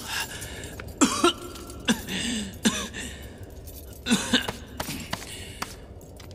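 A man coughing in short, harsh bursts, several times over a few seconds, with a steady low hum underneath.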